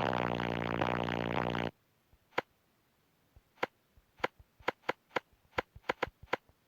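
A loud, buzzy low drone that cuts off abruptly under two seconds in. It is followed by a series of about a dozen sharp, short clicks that come faster toward the end.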